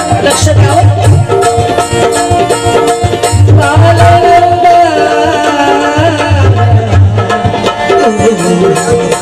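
Indian folk-style music: hand drums keep a steady repeating beat under a held, gliding melody line.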